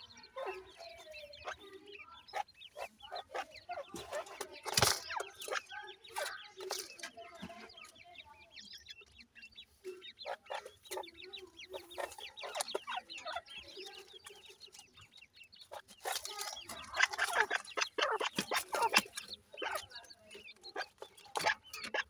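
A brood of partridge chicks peeping and chirping continuously in rapid short calls, getting louder and busier in the last few seconds.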